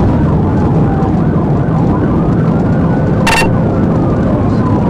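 Police cruiser's siren wailing, its pitch rising and falling slowly, under heavy road and engine noise inside the patrol car. A brief sharp click comes about three seconds in.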